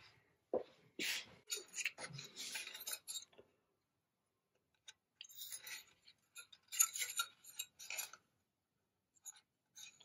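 Light metallic clinks and rattles as a homemade variable capacitor is handled, its aluminium plates, washers and nuts knocking together, in two spells with a short pause between.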